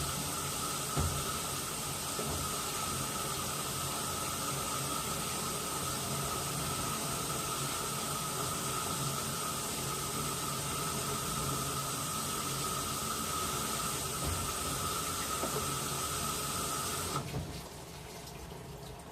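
Washing machine taking in water: a steady hiss of running water with a thin whine that stops abruptly about seventeen seconds in, as the inlet valve shuts, leaving a quieter low churning.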